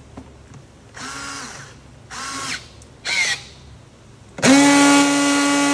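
Battery-powered V2 strapping tool's motor test-running on plastic strap: three short runs about a second apart, then a louder steady whine that starts about four and a half seconds in and keeps going. The motor now starts and stops on command after the repair.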